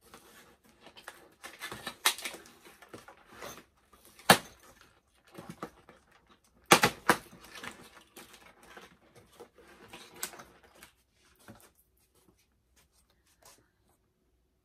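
Cardboard and clear plastic packaging being handled: irregular rustling, scraping and tapping, with sharp clicks about 4 seconds in, a cluster near 7 seconds and another around 10 seconds, growing sparser toward the end.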